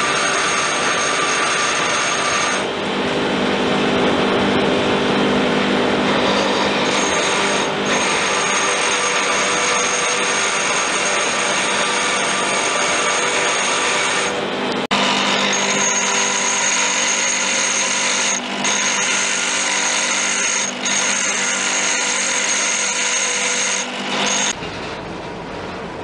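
Bench grinder running while metal is ground against its wheel: a loud, steady whine and rasp that changes pitch a few times and drops briefly where the work comes off the wheel. Near the end it cuts to a quieter, lower steady rumble.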